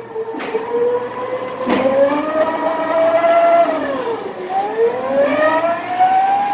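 Go-kart motor whining under way. Its pitch climbs, dips sharply about four seconds in and climbs again as the kart slows and speeds back up. There is a knock just before two seconds in.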